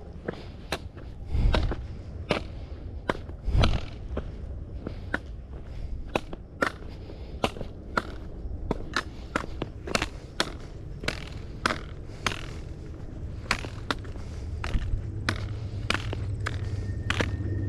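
Trekking-pole tips and boots clicking and scuffing on bare rock while walking, two or three sharp clicks a second, with a few heavier thuds in the first few seconds.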